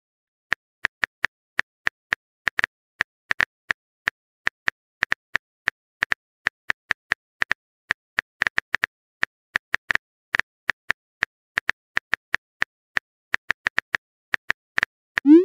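Phone keyboard typing sound effect: short sharp key clicks at an uneven pace of about three a second, as a chat message is typed out. It ends with a short rising tone just as the message is sent.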